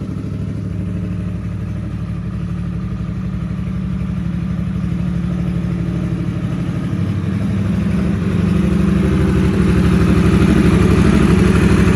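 Harley-Davidson Sportster S's Revolution Max 1250 V-twin idling through a Two Brothers Racing (TBR) aftermarket exhaust, with a steady, even pulse. It grows gradually louder over the last few seconds.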